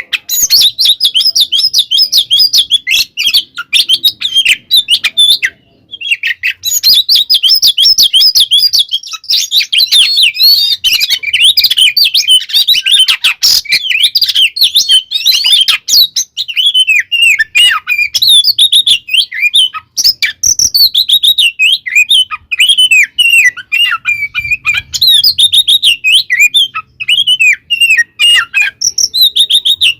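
Oriental magpie-robin singing a fast, almost unbroken run of varied quick notes, with one short break about six seconds in. It is the agitated, fighting style of song that keepers use to rouse other magpie-robins.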